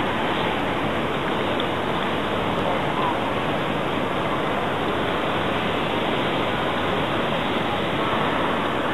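Steady background hubbub of a crowded public space: indistinct voices blending into an even wash of noise.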